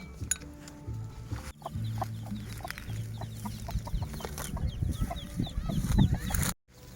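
Chickens clucking among chirping birds, over quiet background music; the sound drops out for a moment near the end.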